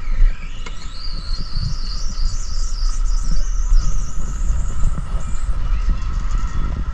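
Mountain coaster cart running along its rail track: a steady low rumble, with a high whine that rises in pitch in the first second as the cart picks up speed, then wavers high for several seconds.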